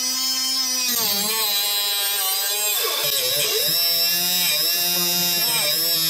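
Angle grinder cutting metal. Its whine dips in pitch several times as the disc bites and recovers in between.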